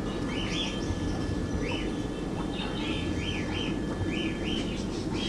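Small birds chirping over and over in short, high calls, over a steady low hum.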